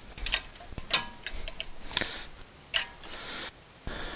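Sharp metallic clicks and short scrapes as a screwdriver pushes and levers a brake caliper's steel retaining spring into place, about half a dozen separate clicks over a few seconds.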